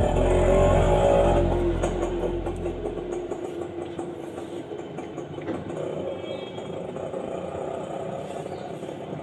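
A motor vehicle's engine running, which fades away over the first three or four seconds and leaves a quieter steady background.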